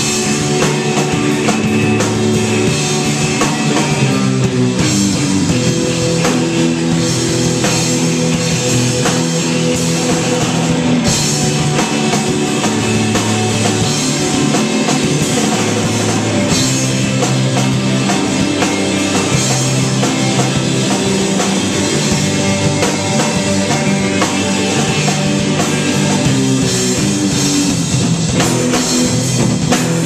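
A rock band playing live: electric guitars, bass guitar and a drum kit with crashing cymbals, loud and steady.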